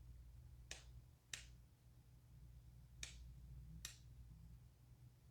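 Near silence over a faint steady low hum, broken by four faint sharp clicks in two pairs, about a second in and about three seconds in.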